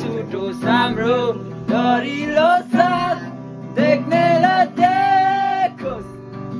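A man singing a Nepali song to strummed acoustic guitar, with long held notes.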